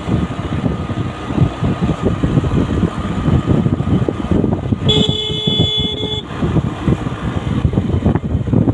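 Wind buffeting the microphone of a moving motorcycle, with its engine running underneath. About five seconds in, a vehicle horn sounds once for just over a second.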